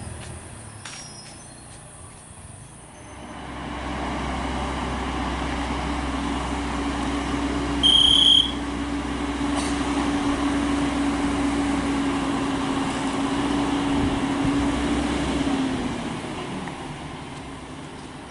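MAN TGS 40.440 truck's six-cylinder diesel engine running with a steady drone that builds about three seconds in and dips and fades near the end. A short high-pitched beep sounds once, about eight seconds in.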